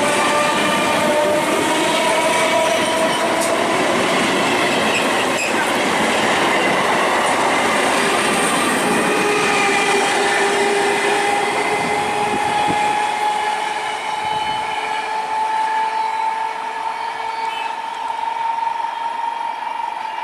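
Electric multiple unit suburban trains running past at speed: a loud rushing and clatter of wheels on the rails, with a steady whine that rises slowly in pitch. The deep rumble thins out about two-thirds of the way through, as the train is farther off.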